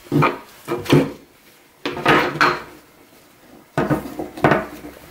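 Plastic snap-frame side clamps being pried off the frame tubes and set down on a table: a handful of separate plastic knocks and scrapes, with fabric rustling.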